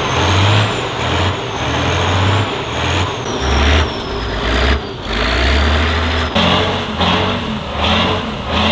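Heavy Tatra 8x8 trial truck's diesel engine labouring under load on a steep climb, its throttle coming and going in uneven surges under a thin high whine. About six seconds in the sound changes to another trial truck's engine pulsing more evenly.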